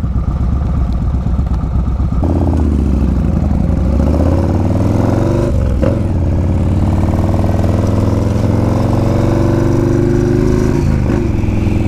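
2008 Yamaha Road Star Warrior's stage-four-tuned V-twin pulling away from a stop and accelerating through the gears, heard from the rider's helmet. The engine note climbs after about 2 seconds, with brief drops at gear changes about 6 and 11 seconds in.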